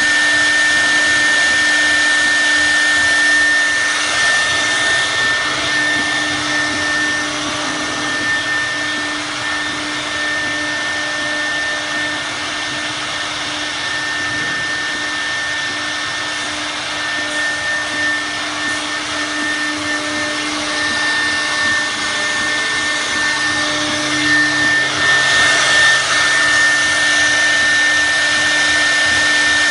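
CNC router spindle running with a steady high whine while its bit carves a wooden log turning on the rotary axis. The cutting noise swells and eases as the bit works.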